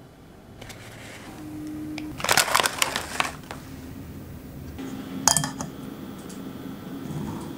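Kitchenware clattering in a quick run of knocks, then about five seconds in one sharp clink that rings briefly: a glass bowl knocking against a metal sieve.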